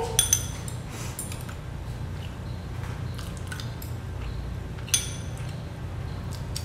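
Stainless-steel chopsticks clinking and scraping against a ceramic rice bowl during eating: a few light, separate clicks, the sharpest about five seconds in, over a steady low hum.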